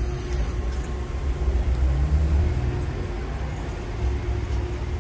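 Low rumble of street traffic, with a vehicle engine rising in pitch about two seconds in.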